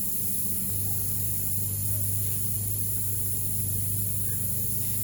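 Steady low hum with a faint hiss over it; its pitch drops to a lower, steadier drone about a second in.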